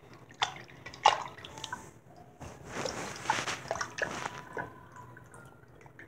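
Water splashing and dripping as a hand swishes small squishy rubber toys around in a sink of water: irregular splashes and drips, a little louder about a second in and again around three seconds.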